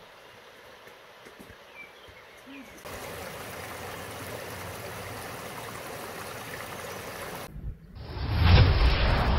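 Shallow stream water running over rocks, a steady rushing that starts suddenly about three seconds in after a stretch of faint outdoor quiet. Near the end the stream cuts off and a much louder low rumbling noise takes over.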